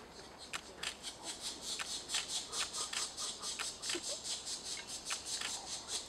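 Pileated woodpecker nestlings begging to be fed as the parent arrives: a rhythmic chorus of high, hissing calls, about five a second, with a few sharp ticks among them.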